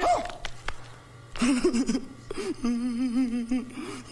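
A man's voice letting out a drawn-out, wavering whine, starting about a second and a half in, over a faint steady hum.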